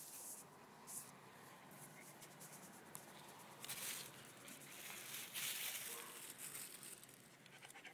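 Thin plastic bag rustling and crinkling in irregular bursts as a hand presses combed-out dog fur into it.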